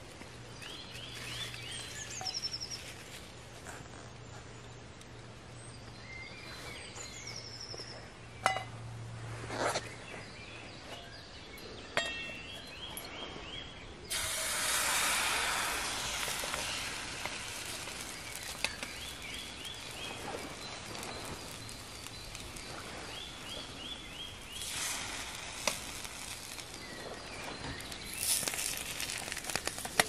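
Batter going into a hot frying pan over a small wood-burning stove: a sudden loud sizzle about halfway through that slowly settles into a quieter sizzle, with the wood fire crackling. Short repeated bird call phrases sound now and then, and a few clinks and knocks come in the first half.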